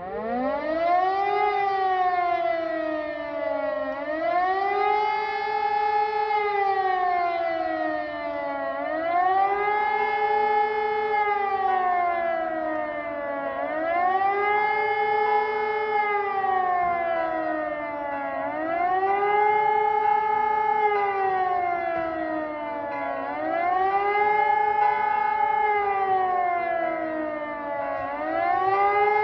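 Civil defence siren sounding a test alarm with a wailing tone that rises and falls about every four and a half seconds. It starts near the opening, climbing up from a low pitch. This is the rising-and-falling warning signal of the German national warning day.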